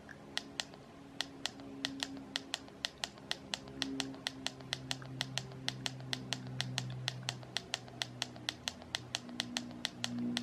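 Keypad of a Baofeng UV9R Plus handheld radio clicking as its arrow key steps through the menu settings, an even run of short, sharp clicks at about five a second.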